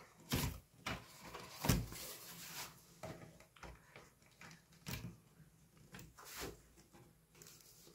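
Hands fitting a replacement laptop LCD panel into the lid: about six soft knocks of plastic and panel at irregular intervals, with light rubbing between them.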